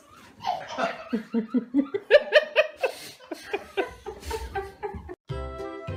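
Someone laughing hard in a quick run of pitched pulses, about four a second, that dies away; about five seconds in, music starts abruptly.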